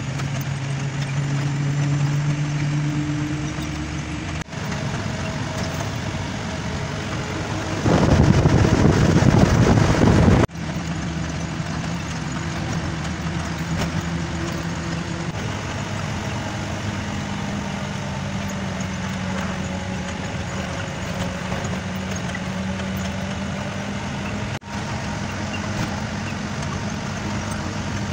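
Ashok Leyland Ecomet truck's engine running steadily with road noise, heard from inside the cab while driving; its note rises a little about sixteen seconds in. About eight seconds in, a loud rushing noise lasts about two and a half seconds and cuts off suddenly.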